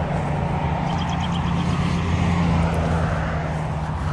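A distant engine drones steadily, swelling slightly about halfway through.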